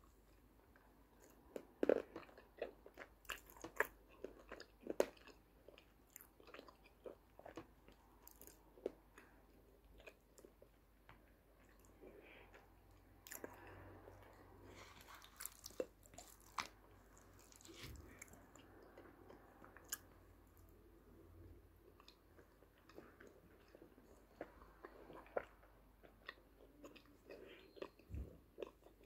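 Close mouth sounds of someone chewing ayilo, an edible clay, eaten as paste and crumbs: faint, irregular crunches and wet clicks, thickest in the first few seconds and again near the end.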